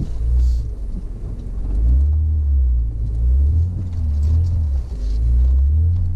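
Honda Ridgeline pickup's V6 engine and tyres rumbling as it drives along a bumpy dirt trail, heard from inside the cab, the deep rumble swelling and easing every second or two.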